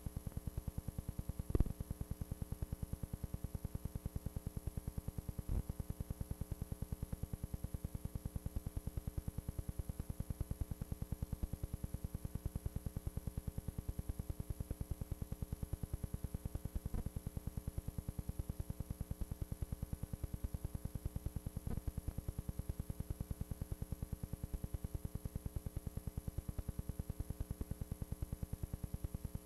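Steady electrical hum and buzz with a rapid, even pulsing that never changes, with a sharp click about one and a half seconds in and a few fainter clicks later.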